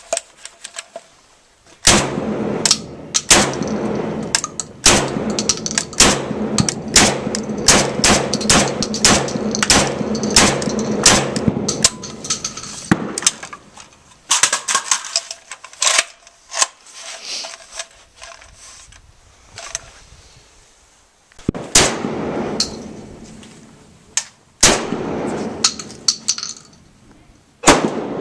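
Saiga 12 semi-automatic 12-gauge shotgun firing a long run of rapid shots, each with a ringing echo. A sparser string follows, then a pause of a few seconds, then more quick strings of shots near the end.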